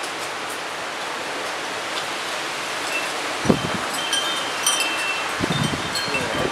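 Storm wind rushing through trees, with wind chimes tinkling from about halfway through. There are a couple of low thumps near the middle and toward the end.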